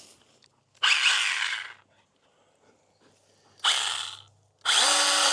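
Stihl battery mini pruning chainsaw run in three short bursts, the chain whirring as the trigger is squeezed and released; the last burst is the longest, with a steady motor whine.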